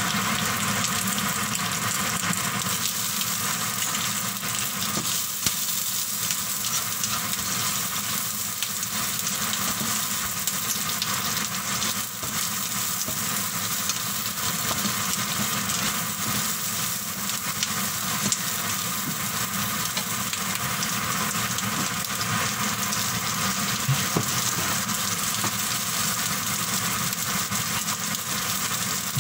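Vegetables stir-frying in hot oil in a nonstick wok: a steady sizzle, stirred with a silicone spatula, with a few light clicks.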